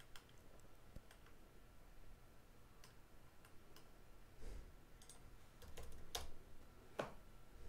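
Faint, scattered clicks of a computer mouse and keyboard, from mouse-wheel scrolling and typing a value. The louder clicks come around six and seven seconds in.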